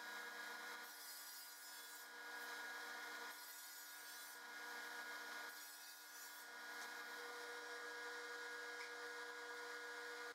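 Delta cabinet table saw running with a steady motor hum while a board is pushed through the blade on its sliding table. The cutting noise swells and eases several times as the wood is fed.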